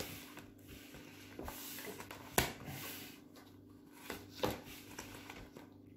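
Uno playing cards being handled and laid down on a table: a few light slaps and taps with soft rustling, the sharpest about two and a half seconds in, over a faint steady hum.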